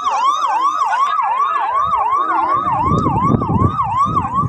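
Emergency vehicle siren in a fast yelp, its pitch swooping up and down about three times a second. A low, rough noise comes in underneath about halfway through.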